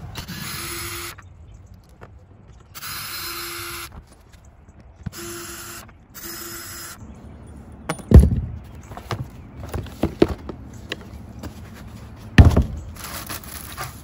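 Cordless drill/driver running in four short bursts as it backs Phillips screws out of a plastic RV refrigerator vent cover. In the second half come two loud thumps about four seconds apart, with lighter clicks and knocks between them as the loose cover and screws are handled.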